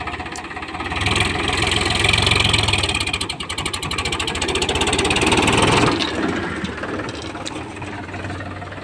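Heavy diesel engine running with a rhythmic knock, revved up for about five seconds from a second in, then dropping back toward idle.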